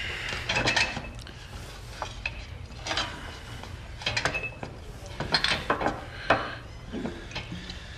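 Scattered clinks and knocks of glassware and small metal items being handled.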